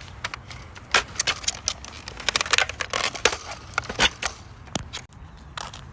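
Irregular plastic clicks and knocks from a Dart Zone Pro Stryker foam dart blaster being handled and worked to cock it, thickest near the middle.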